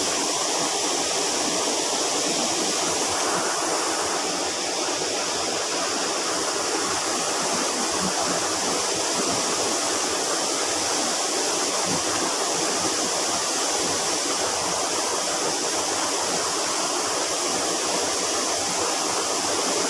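Steady rush of flowing water from a small river.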